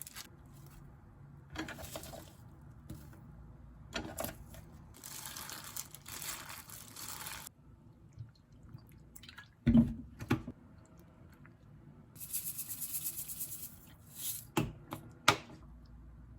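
Short bursts of running water, each lasting one to two seconds, with a few sharp knocks in between; the loudest knock comes about ten seconds in.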